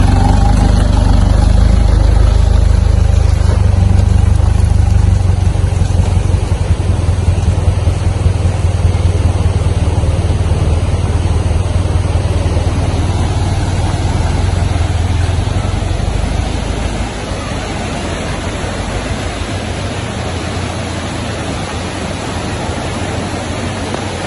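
Engine of a light cargo truck working its way along a muddy dirt road, a low rumble that fades over roughly the first seventeen seconds as it drives off. After that comes the steady rush of a river in spate after heavy rain.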